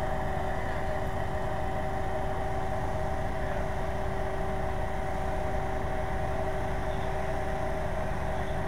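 Fire truck's engine running steadily, a low rumble with an even hum on top that does not change.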